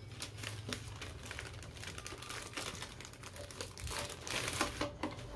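Hands handling a new phone and its packaging: soft, irregular crinkles and light clicks, a little busier about four seconds in.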